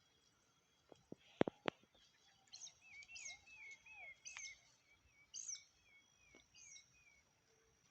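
Faint birdsong: a bird repeats a short wavering call several times a second, with higher chirps over it, after a few sharp clicks about a second in.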